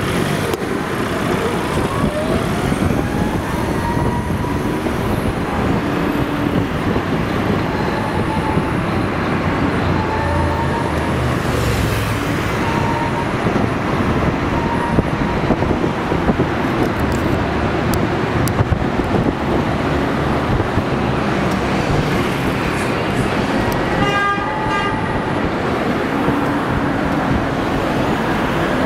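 Steady road and traffic noise heard from an open golf cart moving through city streets. A vehicle horn honks once, briefly, near the end.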